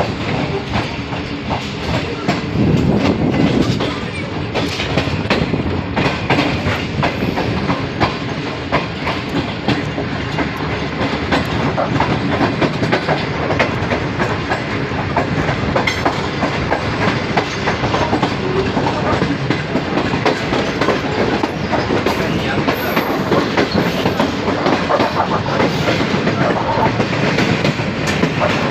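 Pakistan Railways train running past, its wheels clicking continuously over the rail joints under a steady rumble.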